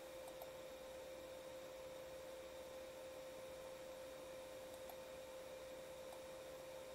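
Faint, steady hum on one mid-range pitch over low hiss.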